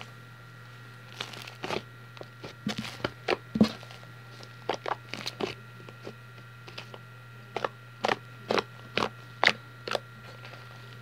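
Fluffy shaving-cream slime being kneaded and stretched by hand, giving irregular sharp crackles and pops that come in short spells with gaps between them.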